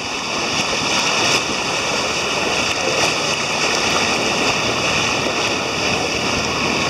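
Sailing yacht under way at sea: a steady, even rush of water along the hull.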